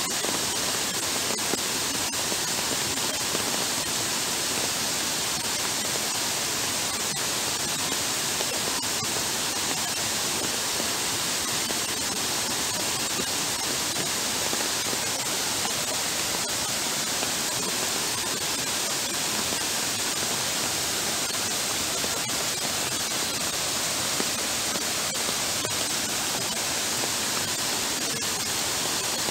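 Heavy downpour falling steadily onto a flooded footpath: an even, unbroken hiss of rain.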